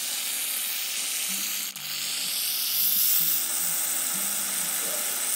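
Steady, loud hiss of a pressurised spray, with a brief dip about two seconds in, cutting off suddenly near the end.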